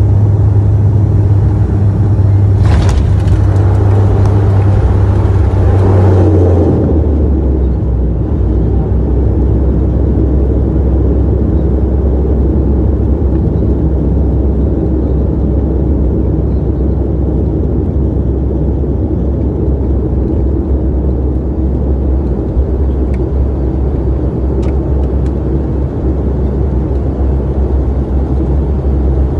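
Cabin sound of a turboprop airliner rolling along the runway: a loud, steady low propeller drone. For a few seconds a rushing roar swells over it, then cuts away, and the drone drops to a lower pitch and runs on steadily as the aircraft slows.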